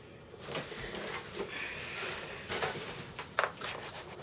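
Rustling and light knocking handling noises, a scatter of short clicks and rustles with no steady sound, as the camera is moved about over an opened monitor box.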